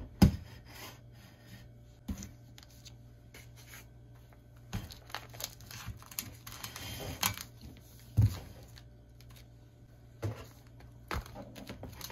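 Close kitchen handling sounds as ingredients and a ceramic plate are moved about: scattered light knocks and clicks, with a short crinkling rustle of packaging around the middle. The two loudest knocks fall at the very start and about eight seconds in.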